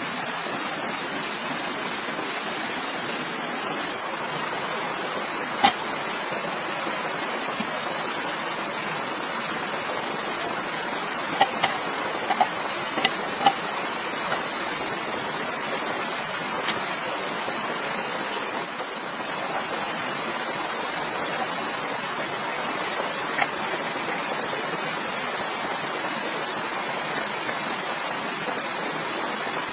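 Steady hiss of water, such as rain or a stream, with a sharp click about six seconds in and a short run of clicks around twelve to thirteen seconds.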